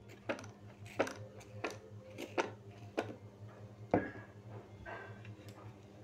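Trigger spray bottle of glass cleaner squirted at a glass sheet about six times, a sharp click roughly every 0.7 seconds, the last one about four seconds in the loudest. After it comes faint rubbing as a cloth wipes the glass.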